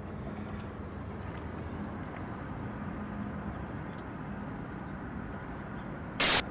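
Quiet, steady outdoor background rumble with a faint low hum. A sudden loud blast of noise, like wind hitting the microphone, comes just before the end.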